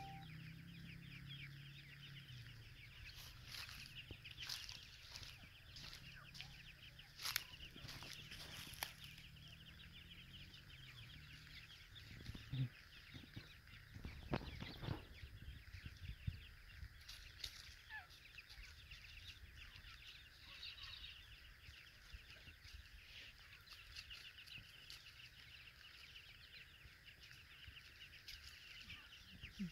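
Grey francolin chicks keeping up a faint, continuous twitter of rapid high peeps, with scattered sharp ticks and taps as the flock forages on leaf litter.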